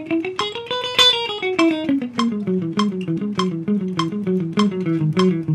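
Clean-toned electric guitar picking a major scale in fast sixteenth notes, climbing to a top note about a second in and then running back down, the picking hand muting and releasing the strings at the bridge for dynamics. A metronome clicks steadily at 100 BPM underneath.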